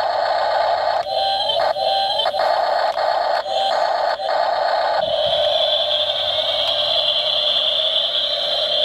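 Small electric gear motors of a 1:16-scale RC excavator whining, stopping and starting several times as the boom and bucket move. About five seconds in, a steadier whine sets in as the excavator turns and drives off on its plastic tracks.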